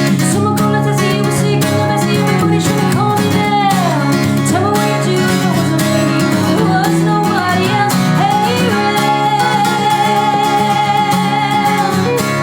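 A woman singing live to her own strummed acoustic guitar, with drawn-out sung lines and a long wavering held note in the last few seconds.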